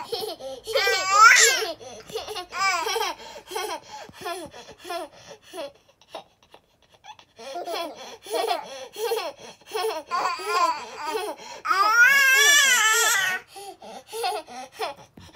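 Small children laughing and babbling, with loud bursts of laughter about a second in and a long, high, wavering squeal of laughter near the end.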